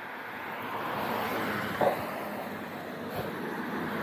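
Road traffic on a wet road: a steady hiss of tyres on wet pavement that grows louder, with one short sharp blip about two seconds in.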